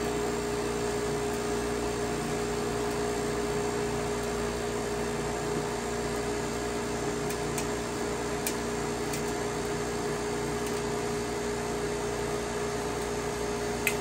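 Gold Medal Econo Floss cotton candy machine running, its spinner head spinning melted sugar into floss: a steady motor hum with a few faint clicks.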